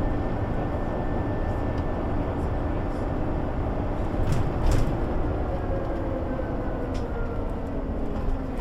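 1998 MAN NG 312 articulated bus under way, its straight-six diesel engine running with a steady drone heard inside the bus. There are a couple of sharp knocks or rattles about four and a half seconds in, and the engine note eases down in the second half.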